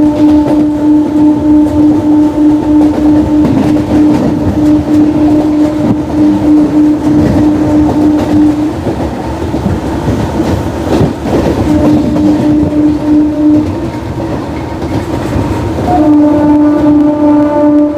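Horn of a MEMU electric multiple-unit train, the 20411 Delhi–Saharanpur Superfast Express, sounding almost non-stop as it runs. A long steady blast of about nine seconds is followed by a shorter one and then another starting near the end. Wheels clatter over the rails in the gaps.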